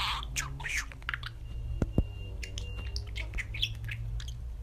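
Budgerigar chirping and chattering in quick, short, high notes over a low steady hum, with a couple of sharp clicks about two seconds in.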